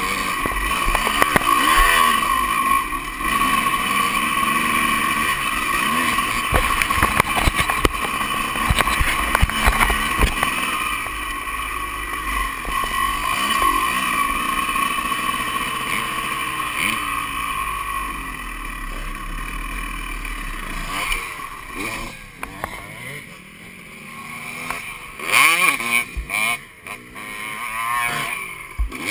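Honda CR250 two-stroke dirt bike engine, heard close up from the bike, revving up and down as it is ridden hard along a dirt trail. It eases off to lower revs from about two-thirds of the way in.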